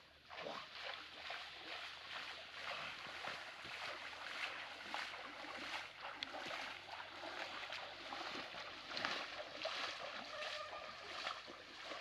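Water sloshing and splashing around a small boat, with many small clicks and knocks throughout.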